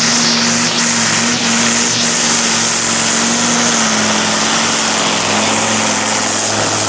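Diesel engine of a MAN Supersport pulling truck running flat out under load as it drags a weighted sled. The engine note is loud and steady, with its pitch dipping slightly about four seconds in.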